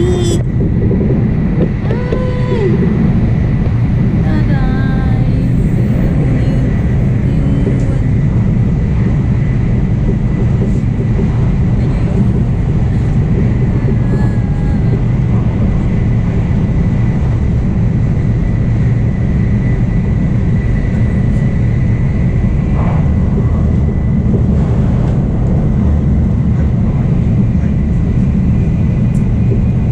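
Nozomi Tokaido Shinkansen bullet train running at speed, heard inside the passenger car: a steady, dense low rumble with a thin, steady high tone over it.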